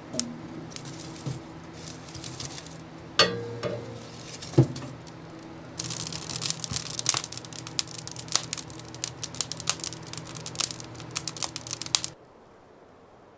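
Split firewood knocking twice as it is loaded into a wood stove's firebox. The wood fire then crackles and pops busily through the open stove door, over a steady low hum, until the sound drops away near the end.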